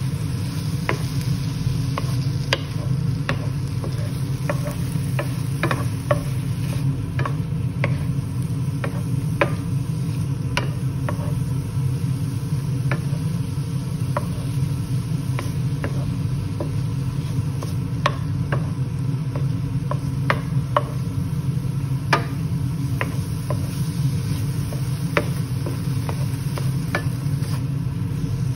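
Wooden spatula stirring and scraping chicken pieces in a non-stick frying pan, giving irregular light clicks and scrapes over a faint sizzle as the chicken cooks without oil to drive off its smell. A steady low hum runs underneath.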